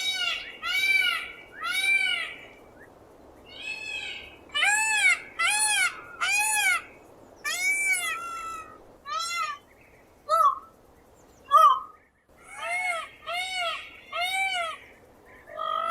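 Peacock calling: a long series of loud, cat-like wailing calls, each briefly rising then falling in pitch, given in runs of three or four with short pauses between runs.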